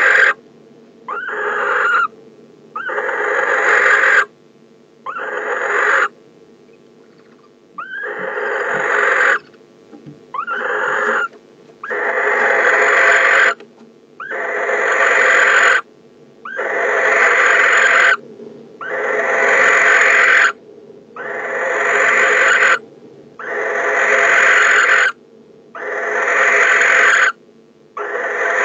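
Male barn owl giving a long series of harsh, hissing screech calls to its mate, about a dozen calls of one to two seconds each, each swelling louder, with a brief pause about a quarter of the way through.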